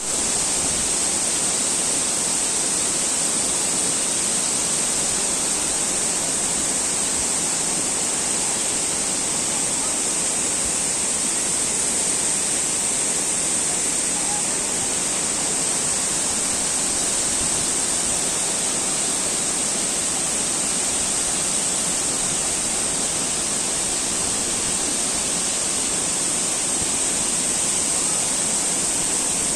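Mençuna waterfall: a steady, unbroken rush of falling water, with a strong high hiss and no change in level.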